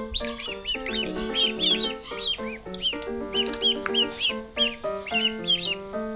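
Ducklings peeping: many short, high, arching calls, several a second, over background music with a steady melody.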